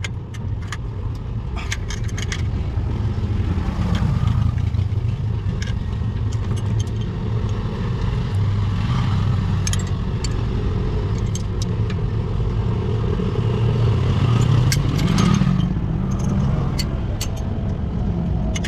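Short metallic clicks and clinks of open-end wrenches on the nuts and fittings of a gear-control cable linkage, over a steady low engine rumble that swells twice, about four seconds in and again near the end.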